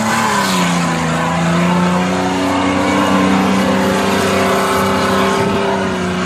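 Short-wheelbase Nissan Patrol's engine revving hard and held at high revs under full load as the 4x4 powers up a steep sand dune. The pitch dips slightly at the start, then holds high and steady.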